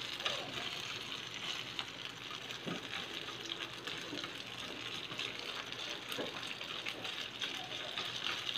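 Meat strips sizzling in a hot frying pan as they are stirred: a steady crackling hiss with a few short scrapes and taps from the wooden utensil.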